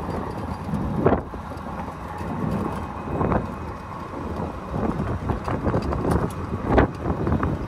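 Wind buffeting the microphone and a low rumble from the open-sided Moke Electric rolling on brick pavers, with three short knocks along the way.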